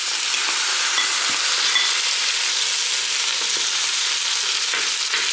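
Onions and freshly added sliced tomatoes sizzling steadily in the rendered fat of smoked pork in a stainless steel pot, stirred with a wooden spoon that gives a few light knocks against the pot.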